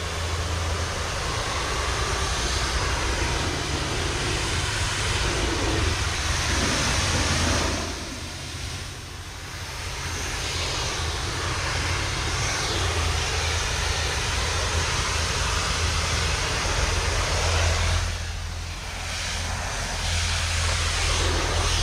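Pressure washer's engine running steadily under the loud hiss of its spray wand rinsing down a house wall; the spray noise drops back briefly twice.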